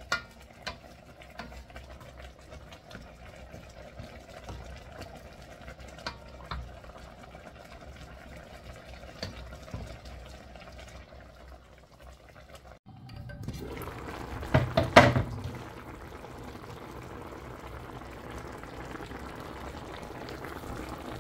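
Chicken broth with leaves and string beans simmering in a steel wok, a steady bubbling. A wooden spatula stirs it with scattered light taps against the pan. About two-thirds through the bubbling grows louder, with a brief cluster of loud knocks.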